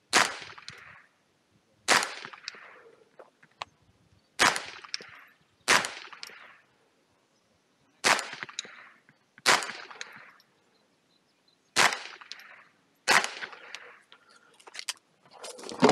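Ruger 10/22 .22 LR semi-automatic rifle fired eight times in four pairs, the two shots of each pair about one and a half seconds apart. Each crack trails off in a short echo. A few light clicks follow, then one more loud bang at the very end.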